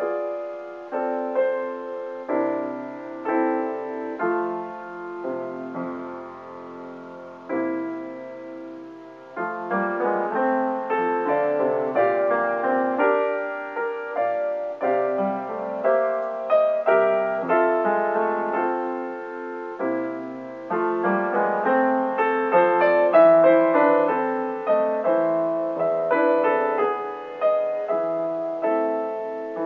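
Solo piano music, single notes struck and left to fade. It is sparse at first and grows fuller and louder from about nine seconds in.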